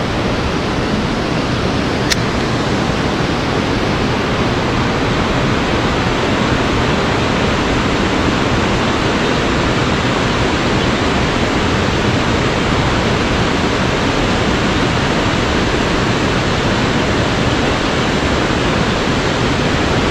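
Steady rush of water pouring from the dam's spillway gate into the tailwater, an even constant noise, with a single light click about two seconds in.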